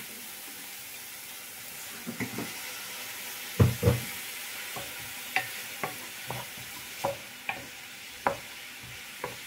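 Chopped onion sizzling in a hot nonstick frying pan with a splash of water just added, a steady hiss from the pan. From about three and a half seconds in, a wooden spoon stirs and knocks against the pan every half second or so, the first knocks the loudest.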